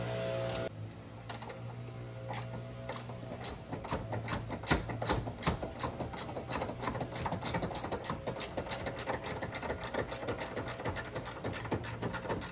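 Hand ratchet clicking rapidly and steadily as a loosened upper control arm bolt is wound out. The clicking starts about a second in.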